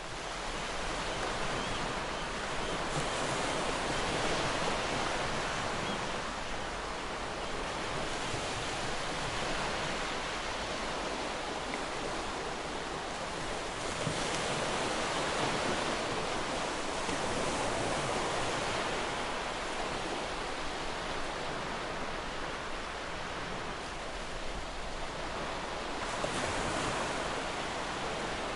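Sea waves washing onto a shore: a continuous rush of surf that swells and eases every few seconds.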